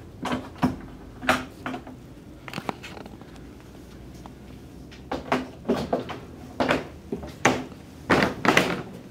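Irregular knocks and clicks of a casement window's sash and hardware being handled, with the loudest run of knocks in the last few seconds.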